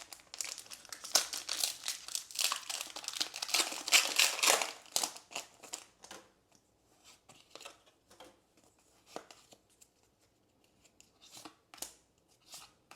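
Pokémon Stellar Crown booster pack's foil wrapper crinkling and tearing open for about the first five seconds. Then scattered light ticks as the cards are handled.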